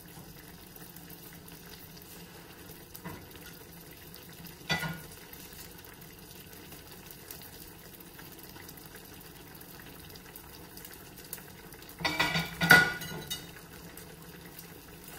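Skillet of broth and mushrooms simmering gently on low heat with a faint steady bubbling. A single light knock a third of the way through, and near the end a brief clatter of a spatula and a glass lid knocking together.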